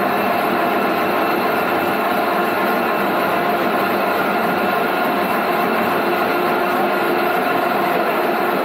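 Power-driven coffee cherry pulping machine running steadily as coffee cherries are fed into it.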